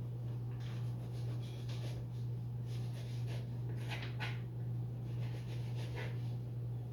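Knife trimming fat off a raw rack of pork ribs: short, soft scraping and cutting strokes at irregular intervals, over a steady low electrical hum.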